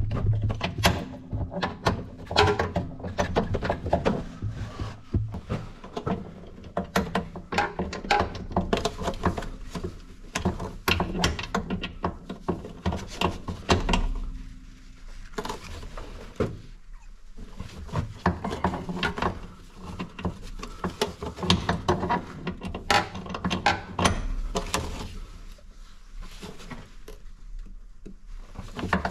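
A hand wrench tightening the bolt of a car's rear shock absorber: a long run of irregular clicks and knocks.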